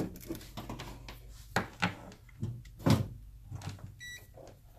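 Handling noise on a workbench: a power cord and meter test leads moved about and a clamp multimeter set down on the sheet-metal case of a rack-mount power supply, giving several knocks and clatters, the loudest about three seconds in. Near the end a short high beep from the clamp meter.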